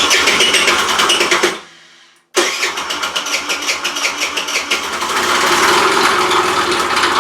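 Rex RS500 scooter engine being turned over on its electric starter in two goes: a short burst of about a second and a half, then after a brief pause a longer run, with an even chugging pulse. It makes an abnormal rattling noise that the owner suspects comes from the crankshaft or the valves.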